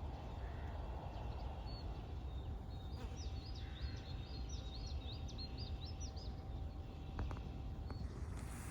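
A small songbird sings a quick run of high, short chirps for about three seconds, starting about three seconds in, over a steady low outdoor rumble.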